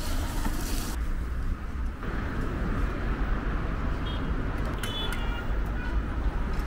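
Street ambience: a steady low rumble of road traffic with a general outdoor hum, and a few short high ringing sounds about five seconds in.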